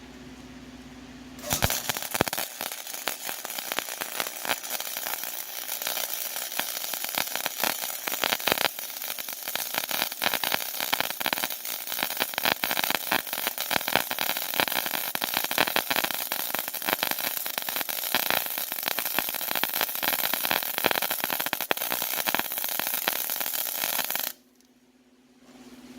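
Electric welding arc crackling steadily while a weld bead is run, starting about a second and a half in and cutting off sharply near the end as the arc is broken.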